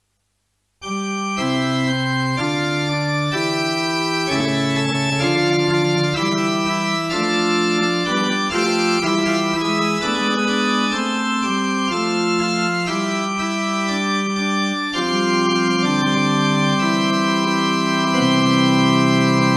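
Organ music: sustained block chords with a moving upper line, the notes changing every half second or so. It starts about a second in.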